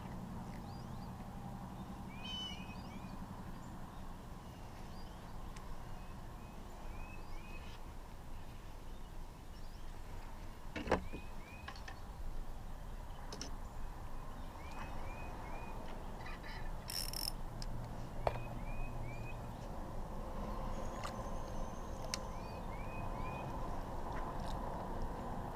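Songbird singing from the riverbank, repeating a phrase of three or four short falling notes every few seconds over a low steady hum. A single sharp click comes about halfway through.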